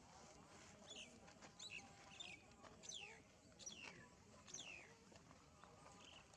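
Faint bird calls: about six high notes, each sliding quickly downward, repeated less than a second apart.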